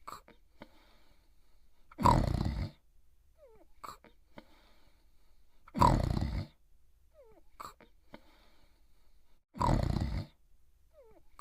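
A cartoon dog's voiced snoring: three loud snores about four seconds apart, with a short falling whistle and a faint breath between each.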